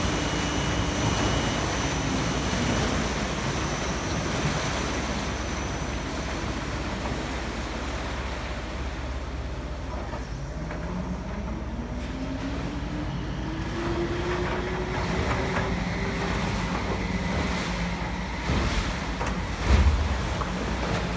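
Large enclosed Archimedes screw pump turning, with water churning and splashing around the screw at the bottom of the trough. The water thins out as the pump runs nearly dry at low water. Around the middle a tone rises steadily in pitch, and a low thump comes near the end.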